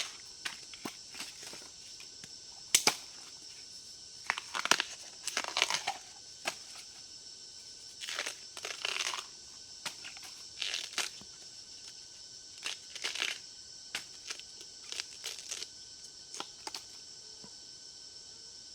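Dry leaves and plant stems rustling and crackling in irregular bursts, with a few sharp snaps.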